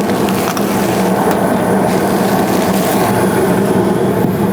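A 90% gas furnace running with its burners lit, giving a loud, steady hum with a low tone, with a few faint clicks about half a second in.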